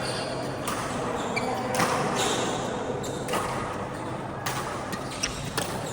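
Badminton rally: rackets striking the shuttlecock, about five sharp hits roughly a second apart, with short high shoe squeaks on the court floor between them.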